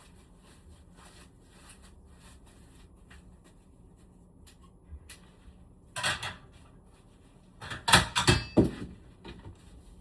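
Handling knocks and clatter: a single knock about six seconds in, then a quick run of sharp clacks and thumps about two seconds later.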